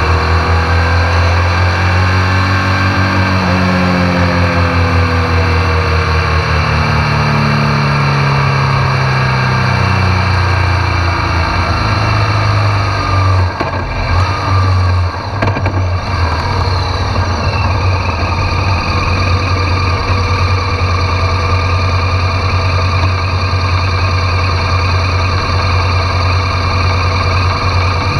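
BMW R1200 GS Adventure's boxer-twin engine heard close up, its note falling steadily over the first ten seconds or so as the bike slows. It dips briefly a couple of times about halfway through, then settles into a steady low idle.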